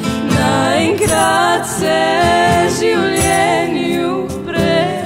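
Music: a voice singing long, wavering held notes over instrumental accompaniment.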